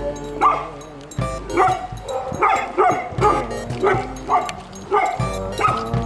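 Music with sustained low tones, over a string of short, sharp pitched calls repeating about twice a second.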